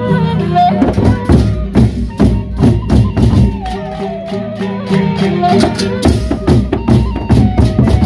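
Sasak gendang beleq ensemble playing: large double-headed barrel drums beaten in a rapid, even rhythm with clashing percussion, a melody line held above the drums.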